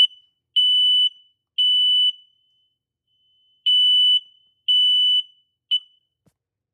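Smoke alarm under test sounding its shrill, steady evacuation tone in the temporal-three pattern: three half-second beeps, a pause, then two more. The next third beep cuts off almost at once near the end as the test stops.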